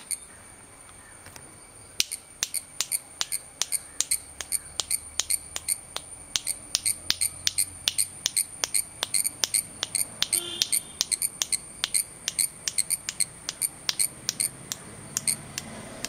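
A cicada's steady high-pitched buzz, with a fast run of sharp clicks starting about two seconds in, roughly three to four a second. The clicks are hand claps and the cicada clicking back in time with them.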